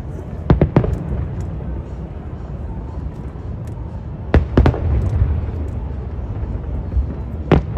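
Aerial fireworks shells bursting in quick clusters of sharp bangs: three about half a second in, three more about four and a half seconds in, and another pair near the end.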